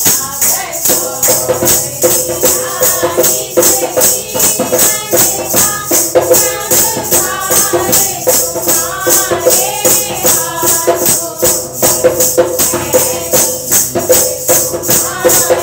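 Women's voices singing a Hindu devotional kirtan together, with hand claps and jingling handheld percussion keeping a steady beat of about three strokes a second.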